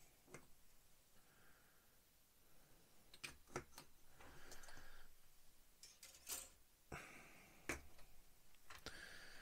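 Near silence broken by a few faint clicks and light taps from plastic model-kit parts and a glue bottle being handled on a cutting mat, with a cluster of clicks a few seconds in and more near the middle.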